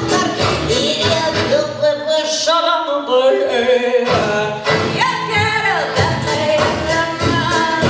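Recorded music with a singing voice over a beat. The bass and beat drop out for about two seconds in the middle, leaving the voice, then come back in.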